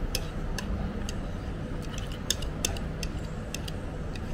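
Porcelain soup spoon and chopsticks clinking and tapping against a ceramic plate in a dozen or so light, irregular clicks, over a steady low rumble of road traffic.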